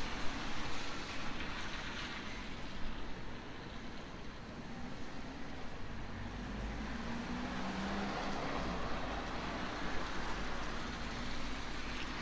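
Steady distant rush of city vehicle noise, with a faint engine hum swelling through the middle.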